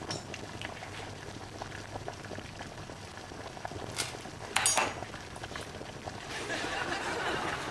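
A pot of spaghetti boiling on the hob, the water bubbling steadily, with a short clink of a fork against the pot a little over four and a half seconds in as a strand is fished out.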